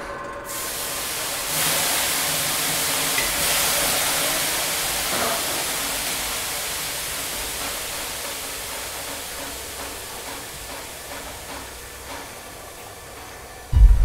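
A long, even hiss that swells up in the first few seconds and then slowly fades away, followed just before the end by a sudden loud, deep boom.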